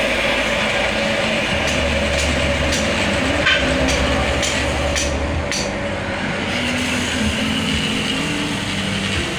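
Oil spinner (centrifugal oil-draining machine) running steadily with its motor humming, with a few light ticks in the middle.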